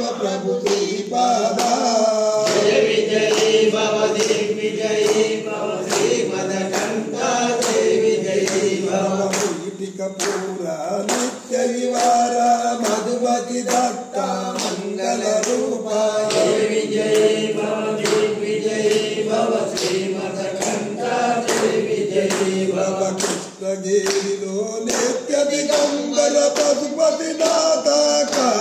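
Devotional chant sung by a group of voices, over a steady percussive beat of about two strokes a second.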